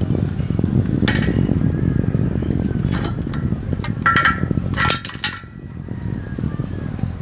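Rough, steady rumble of wind buffeting the microphone, with a few sharp metallic clinks and clanks of metal hardware, two of them ringing briefly, about one, three, four and five seconds in.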